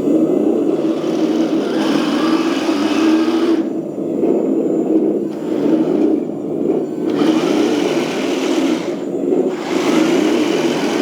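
1:16 RC tank driving slowly: its electric drive motors and gearboxes whirring, with a steady low hum that swells and eases as the tank speeds up and slows down.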